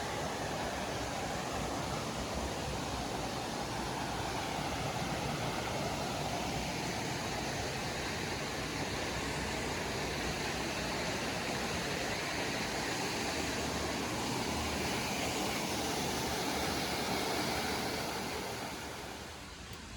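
Steady rush of water pouring down the Hotnitsa waterfall, getting quieter near the end.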